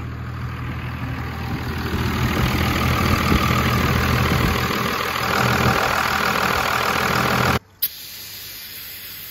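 Diesel pickup truck engine idling steadily. About three-quarters of the way through it cuts off suddenly and gives way to the quieter, even hiss of an aerosol cleaner sprayed from a CRC can.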